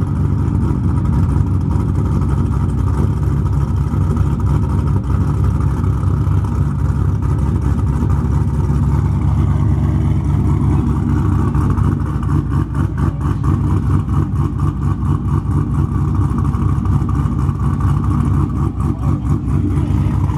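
Chevrolet Camaro engine with an aftermarket cam, idling through its exhaust with a choppy, pulsing beat.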